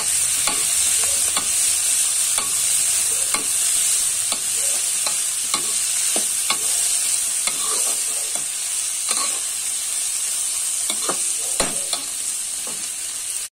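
Chopped cabbage, peas and onion sizzling in hot oil in a metal kadhai, with a steady hiss, while a spatula stirs them, scraping and knocking against the pan about once or twice a second.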